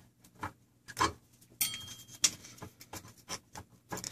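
Light clicks and taps of a 3D-printed plastic extruder block being handled and turned by hand, with a short scratchy scrape in the middle.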